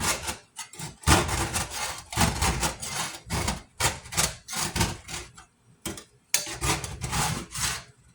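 Repeated scrubbing and scraping strokes on a stovetop, a rhythmic rasping that works off caked-on grime softened with hot soapy water. It pauses briefly about five and a half seconds in, then starts again.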